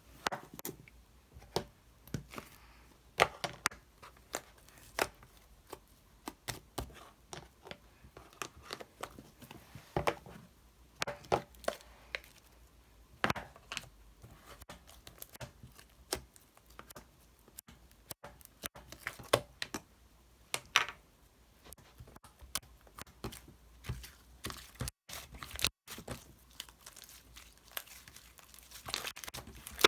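Irregular crinkling and tearing handling noises, a scatter of short crackles with no steady rhythm.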